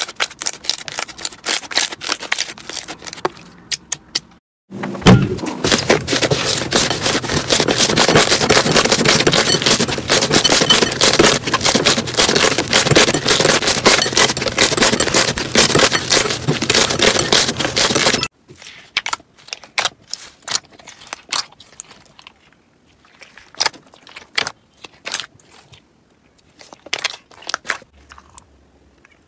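Hands squeezing and pressing slime, making sharp crackly clicks and pops. From about five seconds in comes a long stretch of dense, loud crackling as blue slime is kneaded in a glass bowl; it cuts off suddenly. After that come sparser, quieter wet clicks and squelches as fingers press into a heap of slime jelly cubes.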